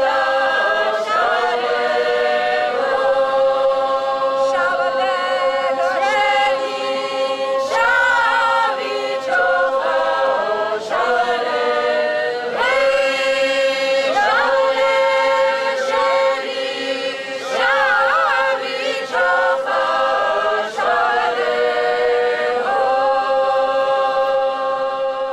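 Unaccompanied traditional Georgian polyphonic singing by a woman and other voices: one note held steadily as a drone beneath melody lines that move above it.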